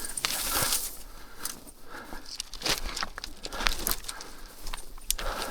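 Irregular rustling and crunching, as of movement through dry field cover, with scattered sharp clicks.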